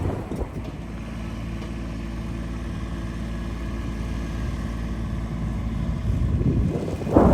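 An engine running steadily at an even speed, with a louder, rougher burst of noise near the end.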